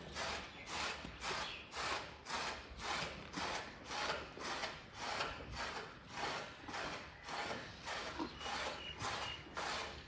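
Rhythmic rasping strokes, about two and a half a second, running evenly throughout.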